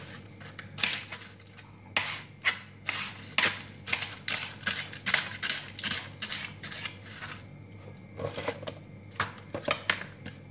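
Kitchen knife cutting through crisp leafy vegetables on a cutting board: a run of short, sharp crunching cuts, several a second, with a brief pause a little after the middle.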